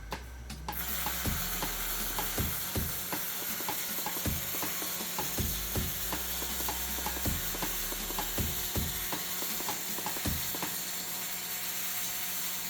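Robot welder's arc laying a bead: a steady crackling hiss that starts about a second in, with a low hum underneath.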